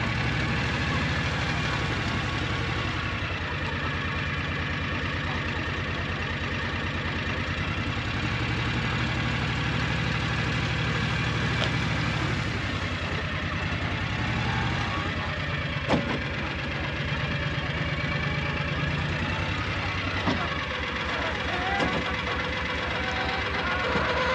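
An engine idling steadily, with one short sharp click about two-thirds of the way through.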